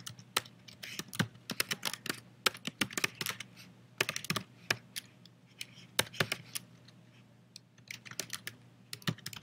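Typing on a computer keyboard: quick runs of key clicks, broken by a pause of about two seconds past the middle.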